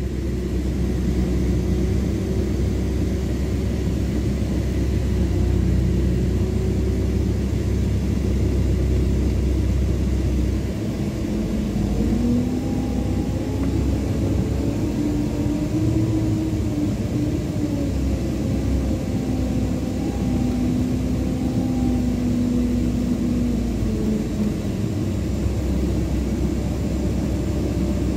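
Scania K410 coach's DC13 inline-six diesel engine running under way, heard from inside the lower deck. The engine note rises about a third of the way in, holds steady, then drops back near the end.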